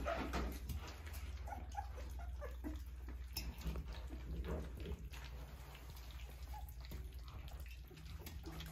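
A litter of Australian Shepherd puppies lapping and smacking at wet food in a metal pan, eating their first meal, with many small wet clicks and a few brief squeaks.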